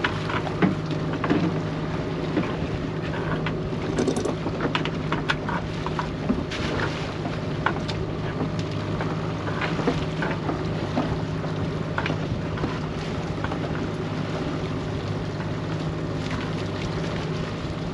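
A small boat's engine running steadily under way, with water rushing past the hull and wind on the microphone. Scattered knocks and clatters come from gear being handled on deck.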